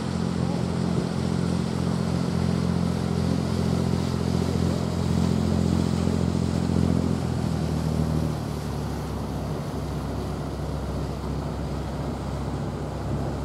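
A steady low engine hum that drops in level about eight seconds in.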